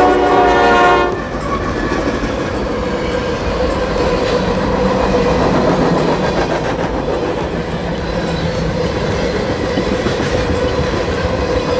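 A diesel locomotive horn stops about a second in, then a freight train of locomotives and tank cars rolls past steadily.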